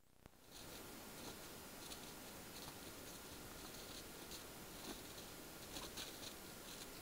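Faint scattered rustles and soft ticks of rabbits scuffling and hopping in snow, over the steady hiss and faint electronic whine of a trail camera's microphone.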